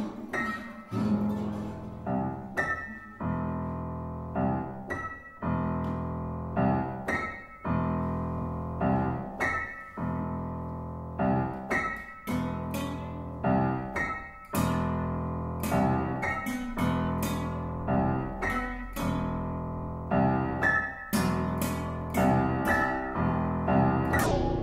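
Upright piano played slowly, chords struck about once a second and each left to ring and fade.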